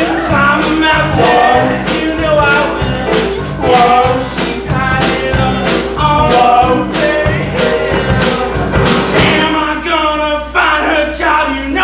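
Male voices singing a rock and roll number in close harmony over accompaniment with a steady beat. About nine seconds in the beat drops out and the voices carry on alone.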